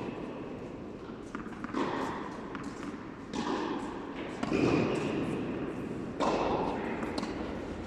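Tennis rally: the ball struck by rackets and bouncing on the court, four sharp hits with an echo after each.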